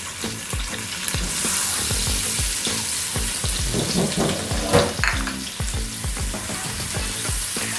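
Onion sautéing in a pan, sizzling steadily.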